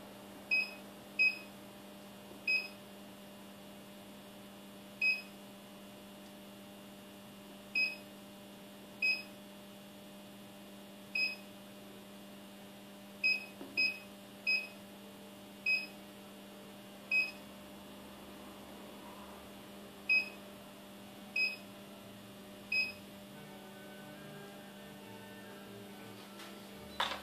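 Sinpo digital readout on a milling machine beeping briefly at each key press, about fifteen short high beeps spaced unevenly as numbers and functions are entered for a bolt-hole circle. A steady low hum runs underneath.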